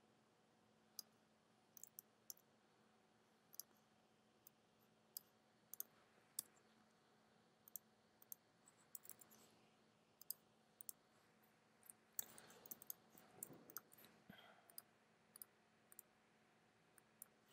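Faint, irregular clicks of a computer mouse, spaced about a second or two apart, with a quicker run of clicks and a soft rustle around three-quarters of the way through.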